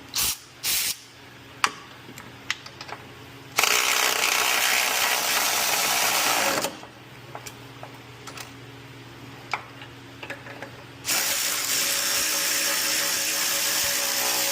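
Power ratchet running in two long runs of about three seconds each, after two short blips at the start, with scattered ratchet clicks in between, as it tightens a stabilizer bar bolt.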